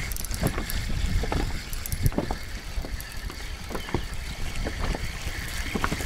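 Wind buffeting the microphone in a steady low rumble, with choppy water lapping against an inflatable boat's hull and scattered small clicks and knocks.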